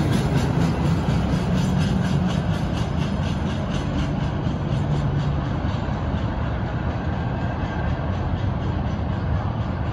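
CSX freight train's last cars rolling away on the rails, a steady rumble of wheels that slowly fades as the train recedes.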